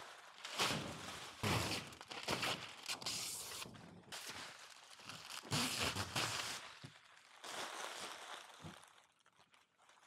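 Plastic protective film being peeled off a clear plastic roof panel and handled, rustling and crinkling in irregular bursts; it dies down about seven seconds in, leaving a few faint ticks.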